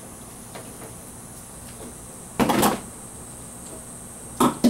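Frozen 2-liter bottles being dropped into an ice chest: two dull knocks, one about halfway through and a sharper one near the end.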